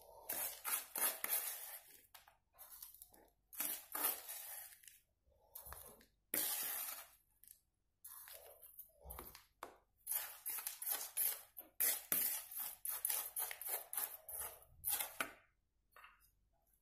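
Metal spoon scraping and clinking against bowls while scooping crushed biscuit crumbs, a run of irregular scrapes with brief pauses.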